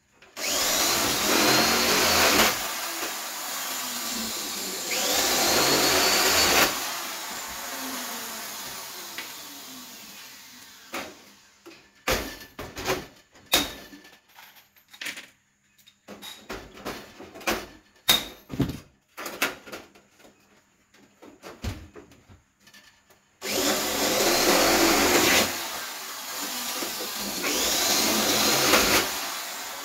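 Hand-held electric drill working on aluminium floor panels: four runs of about two seconds each, the motor rising in pitch as it spins up, two near the start and two near the end. In between, sharp clicks and knocks of the aluminium parts being handled.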